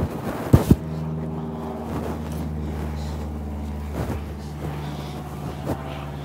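Knocks and handling noise of a phone carried against the body while someone climbs a tree, the two loudest knocks about half a second in. A steady low hum runs underneath.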